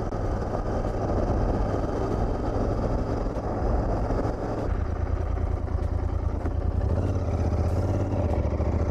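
Royal Enfield Continental GT 650's 648 cc parallel-twin engine running while riding along a country lane, its note shifting about five seconds in and again near seven seconds.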